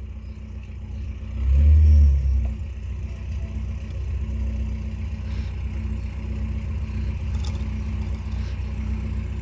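Steady low mechanical hum, with a louder low rumble that swells and fades about a second and a half in.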